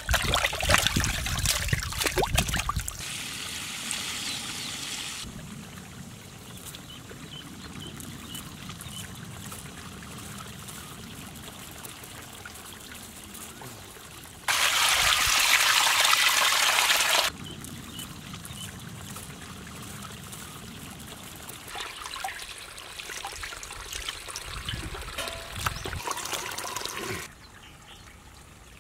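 Water splashing in a steel pot as raw chicken drumsticks are washed by hand, loudest in the first few seconds. About halfway through comes a loud rush of water lasting about three seconds as the pot is tipped and drained, then lighter splashing again later.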